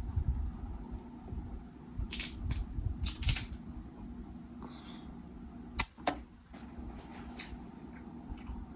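Close-miked eating sounds: chewing and wet mouth smacks, with a few sharp clicks and low bumps from handling the food.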